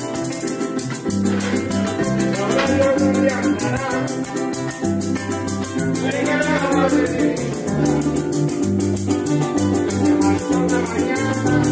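Venezuelan llanera (joropo) ensemble playing live: a llanera harp carrying the melody over a strummed cuatro and an electric bass line, with fast, even maraca shaking throughout.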